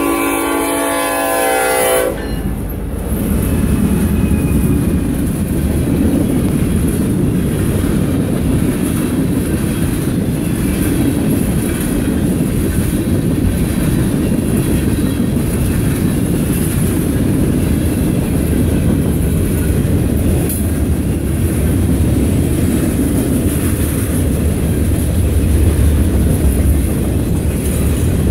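An EMD SD70ACe locomotive's horn sounds one chord that cuts off about two seconds in, as the locomotive passes. Then a freight train's tank cars and open hopper cars roll past with a steady rumble and the clickety-clack of wheels over the rail joints, a little louder near the end.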